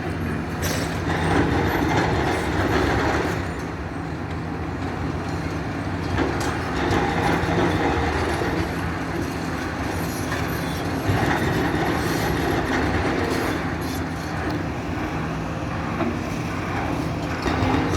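Demolition excavator's diesel engine running steadily, with louder spells of clatter and scraping from the machine working the wreckage, about a second in, around seven seconds and again around eleven seconds.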